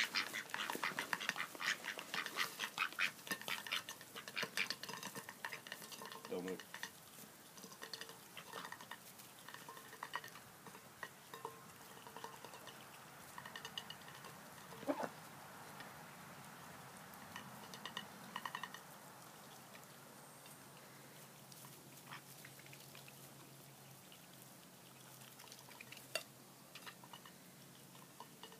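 Ducks feeding from plates of tomatoes and spaghetti, their bills dabbling and slurping through the wet food with rapid clicking and tapping against the plates. The clicking is densest for the first few seconds, then thins to scattered taps.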